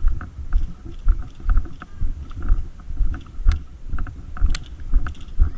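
Footsteps of a player on the move, about two a second, each with a dull thud and a rattle of carried gear. Two sharp clicks about three and a half and four and a half seconds in.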